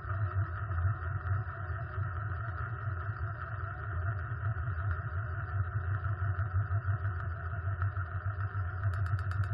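Sheet-metal tin lid spinning and wobbling on its rim on a hard surface after being dropped, making a steady continuous rattle. Sharper metallic clicks come in near the end as it settles.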